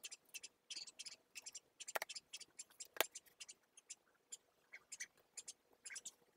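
Quick scratchy strokes of a pencil on paper, in short runs, with two sharp clicks about two and three seconds in.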